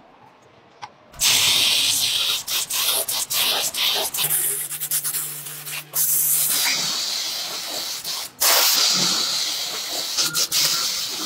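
Compressed-air gravity-feed spray gun spraying paint onto steel wheel rims: a loud, steady hiss that starts about a second in and runs in long passes, breaking off briefly twice.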